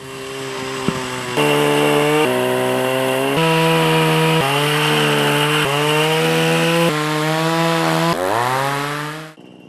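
Pole saw engine running hard as it cuts tree branches, its pitch shifting in steps every second or so, then revving up sharply near the end before dropping back.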